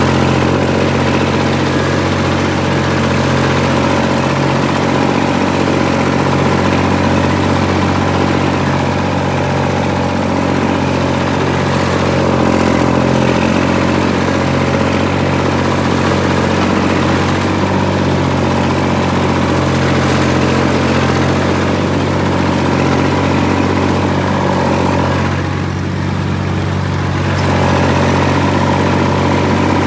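Massey Ferguson 148 tractor's three-cylinder diesel engine running steadily as the tractor drives along a dirt track. Near the end the engine eases off briefly, then picks back up.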